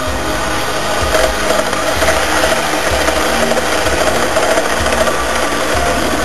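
Model railway train running past close by: a steady mechanical rattle of wheels and coaches on the track.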